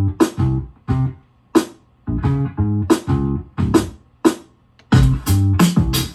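Beat played on a Native Instruments Maschine MK3: short, sharply struck bass- and guitar-like notes in a choppy stop-start rhythm with brief gaps, getting busier about five seconds in.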